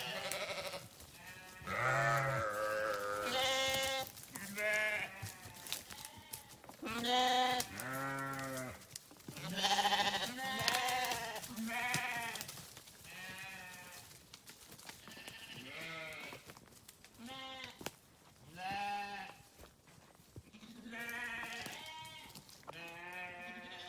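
Sheep bleating over and over, more than a dozen separate quavering calls of about a second each, some deep and some higher-pitched, from several animals.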